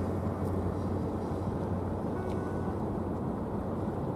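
Steady low rumble with wind hiss from a large car carrier ship under way; no single event stands out.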